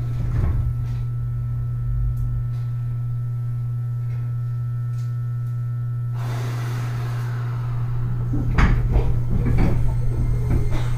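Interior of a stationary Keio 8000 series train car: a steady electrical hum from the car's equipment, with more noise coming up about six seconds in and a few knocks of the sliding doors near the end.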